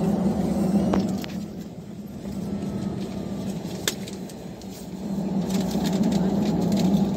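Airbus A320 jet engines heard from inside the cabin, running at a raised thrust setting, easing off about a second and a half in and spooling up again after about five seconds. These are repeated bursts of thrust to move the jet, which stopped out of position near the gate. Two sharp clicks in the cabin, about a second and four seconds in.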